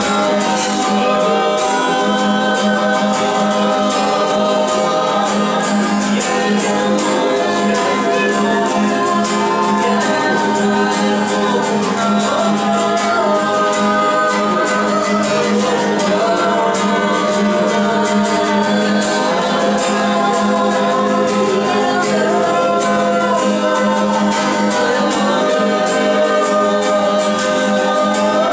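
Worship singing with acoustic guitar: a woman's voice leading, with other voices singing along. It runs on without a break.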